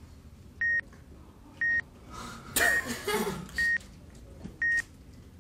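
Electronic countdown timer beeping once a second, five short high beeps as the clock counts down, with a brief noisy burst between the second and third beeps.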